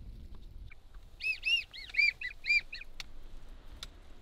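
Wigeon whistles: a quick run of about seven clear, high whistled notes, each rising then falling, lasting a second and a half, followed by a faint click.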